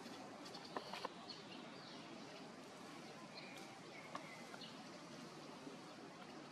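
Faint outdoor background noise with a few brief, high chirps and a few sharp clicks, clustered about a second in and again just past four seconds.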